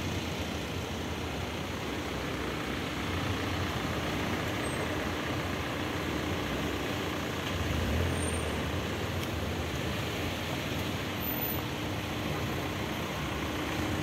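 Town street traffic: a steady rumble of motor vehicles with a low engine hum, swelling louder about eight seconds in as a vehicle passes.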